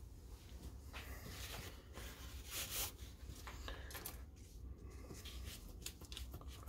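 Faint scraping and rubbing as wet Cement All is worked in a silicone tray mold, first with a thin wooden stick and then by hands handling the mold, with a few light clicks near the end, over a low steady hum.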